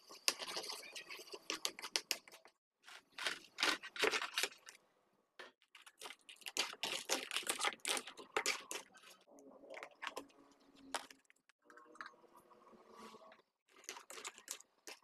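Crabs stir-frying in a wok: crackling and spattering of hot sauce, with clicks and clatter of shells and spatula. It comes in bursts of a second or two with brief pauses.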